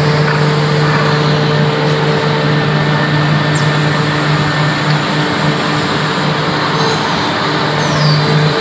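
Woodmaster WM-150NC CNC tenon milling machine running: a steady spindle-motor hum under an even whirring noise.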